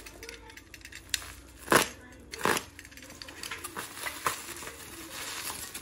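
Plastic bubble wrap around a small package crinkling and crackling as it is gripped and turned, with a few sharp clicks. Two louder crackles come about a second and a half and two and a half seconds in, followed by a steadier crinkle near the end.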